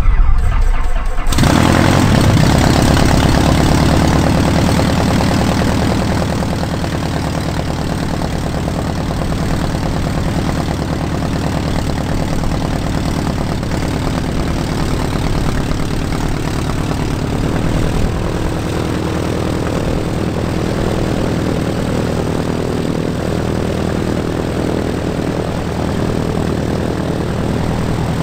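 Rutan Long-EZ's pusher-propeller piston engine starting: a rough burst as it catches, settling after about a second into a steady idle that runs on while the aircraft begins to taxi.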